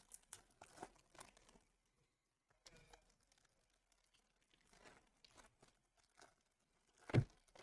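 Foil trading-card pack wrapper being torn open and crinkled by hand: faint scattered crinkles, with one brief louder rustle near the end.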